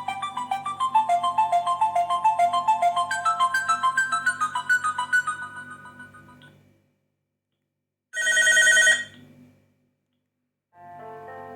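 Preloaded ring and message tones played on a Sony Ericsson W900i: a quick melody of fast repeated notes fades out about six seconds in. After a pause comes a short tone of about a second, then another tone begins near the end.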